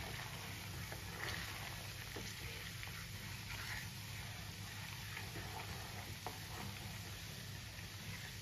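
Malai being cooked down into ghee: the separated ghee sizzles and bubbles steadily with small crackles, the sound of the stage where the milk solids have split from the clear ghee. A wooden spatula stirs and scrapes through it a few times.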